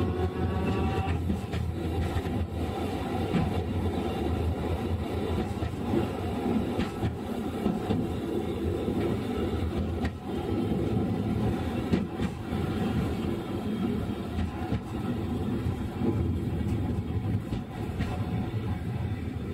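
Inside a Sapporo streetcar M100-type tram running on street track: a steady low rumble of wheels and body. A rising motor whine fades out about a second in, and there are occasional sharp knocks. The level eases off slightly near the end.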